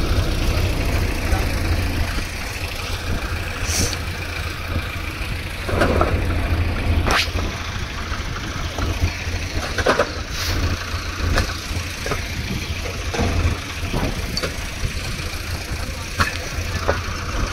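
Diesel engine of heavy machinery running steadily at idle, with a few sharp clanks and knocks scattered through.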